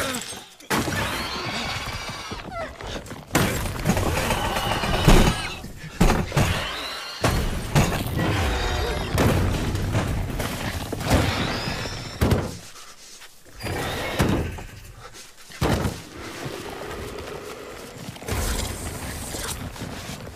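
Monster-film action soundtrack: repeated crashes, thuds and shattering, with shrieks that rise and fall in pitch, over dramatic music. A quieter lull comes about two-thirds of the way through.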